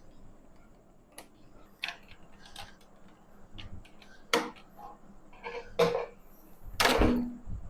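Plastic retaining clips of a laptop's bottom cover clicking loose one after another as the panel is pried off along its edge. A louder, longer crackle comes near the end as the cover comes free.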